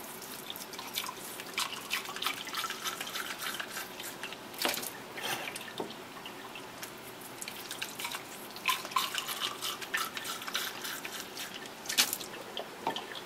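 MilliQ water splashing and dripping in irregular spatters as slides and their containers are rinsed, the rinse water poured off through a plastic funnel into a bottle.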